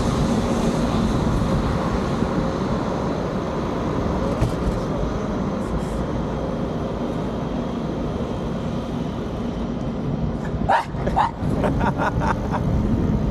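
Steady vehicle running noise, a rumble with a low hum, with a few short sharp sounds about eleven seconds in.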